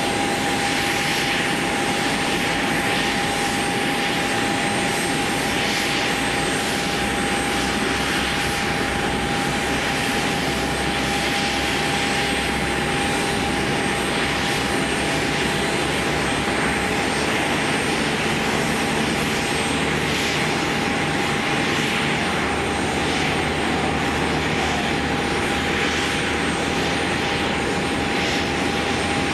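Jet airliner noise from a Boeing 767 being pushed back from the gate: a constant whine at one pitch over a steady rushing hiss, unchanging throughout.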